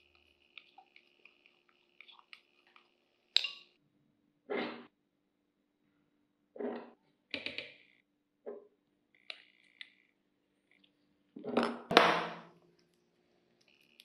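Ingredients being added by hand to a plastic food-chopper bowl: light clinks of a glass bowl and spoon, then several short rustling pours or scrapes, the loudest about twelve seconds in.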